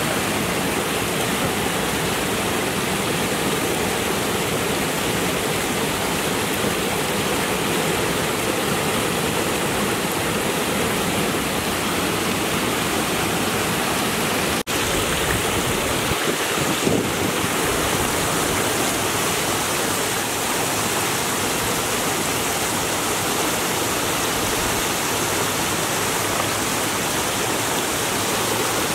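Water of a small rocky stream running and splashing steadily over and between boulders, dropping out for an instant about halfway through.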